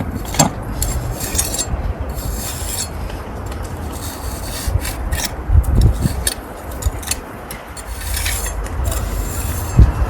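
Steel pointing trowel scraping fresh mortar in brick joints: an irregular run of short rasping strokes as the joints are cut and shaped at an angle, with a few dull knocks.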